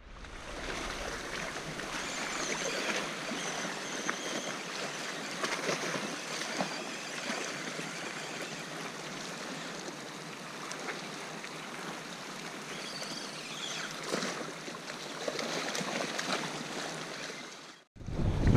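Loch water washing against the shore: a steady rushing hiss with faint, irregular small clicks through it.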